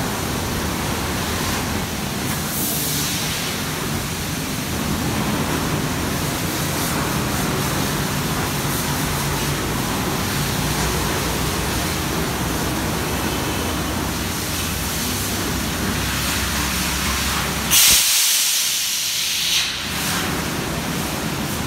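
Car-wash hose spraying soapy water over a car's rear and windows: a steady hiss with a low hum underneath. Near the end the spray turns louder and sharper for about two seconds.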